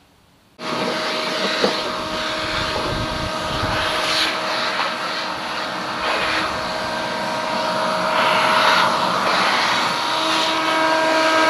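A vacuum cleaner is switched on about half a second in and its motor runs with a steady whine. The hose sucks up sawdust from the plywood subfloor and door sill, and the rush of air rises and falls as it moves.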